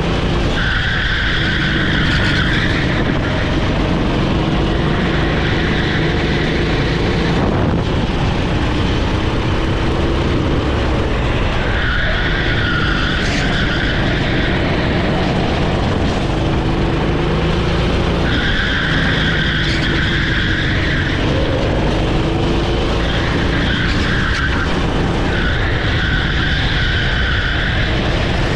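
Honda GX390 single-cylinder four-stroke engine of a Sodi SR4 rental kart running hard at racing speed, its revs rising and falling lap through corners and straights. The tyres squeal several times in the corners.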